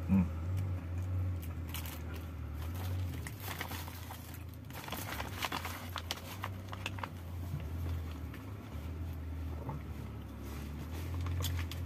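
Plastic bag of curry sauce and brown paper food wrapper crinkling and rustling in spells as they are handled and folded up, over a steady low hum.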